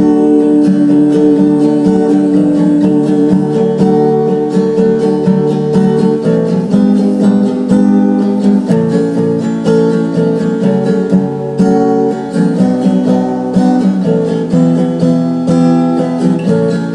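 Instrumental break in a sung love ballad: guitar strumming chords that change every second or two, with no voice.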